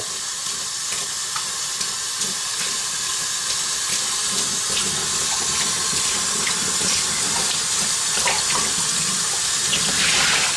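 Tap water running steadily into a sink, splashing over and through an aluminium spray-gun paint cup as the water-based primer is rinsed out, with a few faint clicks. The splashing grows louder near the end as the cup is held under the stream.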